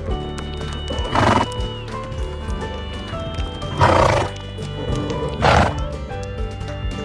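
Three short horse calls over background music with steady held notes, the loudest in the middle.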